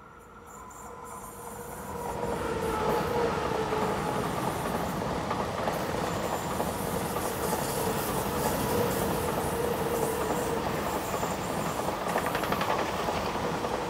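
SBB ICN electric tilting train (RABDe 500) passing close on the track: wheels rumbling on the rails with a steady whine, growing louder over the first two seconds and then holding. Rhythmic clacking of the wheels comes near the end.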